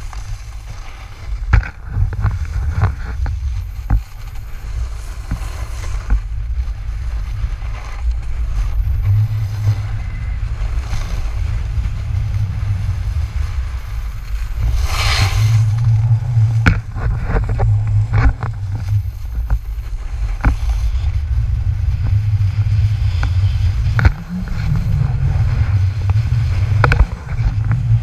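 Wind buffeting a GoPro camera's microphone during a fast snowboard run, a heavy steady rumble, with the board's edges scraping over groomed snow and a few short knocks; a louder scrape about halfway through.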